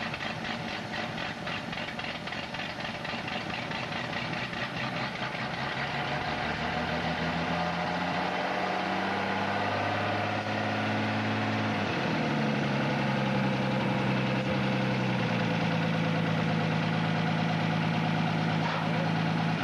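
1956 Ford Zephyr Six Mk II's straight-six engine idling just after a cold start, its first start in three years. The idle climbs over the first half, dips briefly about twelve seconds in, then settles steady and a little louder. Holes in the exhaust pipe make it loud and noisy.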